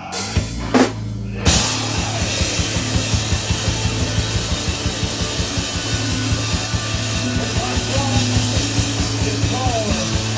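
A three-piece instrumental rock band playing live: a sustained low note and a couple of hits, then about a second and a half in the full band comes in loud with a fast, steady drum beat.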